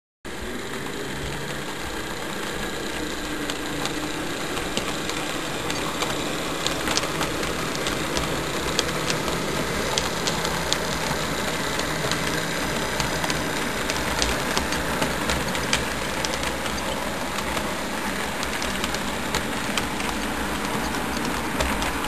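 HO-scale model train running along the track: a steady mechanical rumble and hum with many irregular light clicks, like wheels ticking over rail joints.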